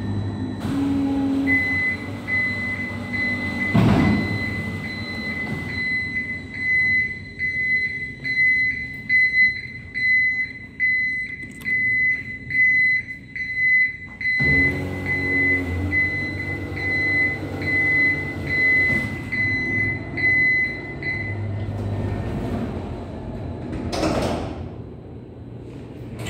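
Mitsubishi freight elevator: a high warning beeper pulses about twice a second for some twenty seconds over the low hum and rumble of the door and car machinery, which returns suddenly about halfway through. A knock sounds about four seconds in, and another near the end.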